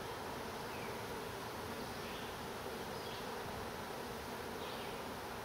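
Honey bees from an opened hive buzzing steadily, a mass of bees on the frames making an even hum.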